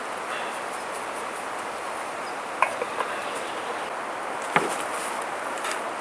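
Wood fire burning in a dug fire pit, a steady hiss with three sharp cracks about two and a half, three and four and a half seconds in, the last the loudest.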